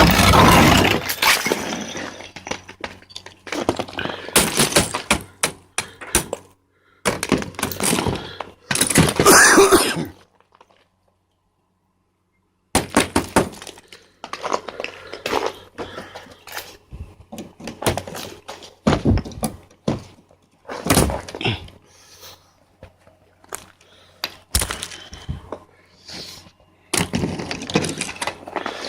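Thick ice sheets on a car being chipped and scraped off: a run of cracks, knocks and crunching scrapes, broken by about two seconds of total silence a third of the way in.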